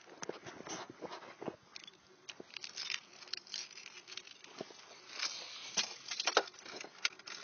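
Irregular light clicks, taps and rustling, like handling noise, with no engine running.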